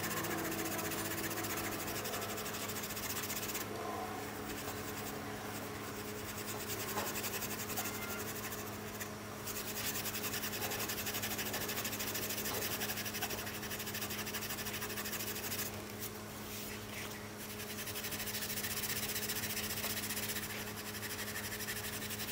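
Steel wool scrubbing up and down a painted M1A rifle stock, scouring off loose paint, with a few brief pauses in the strokes. A steady low hum runs underneath.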